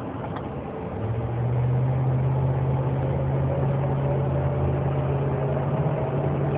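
Pickup truck's engine and drivetrain heard from inside the cab under way, a steady low hum that comes up about a second in as the truck pulls.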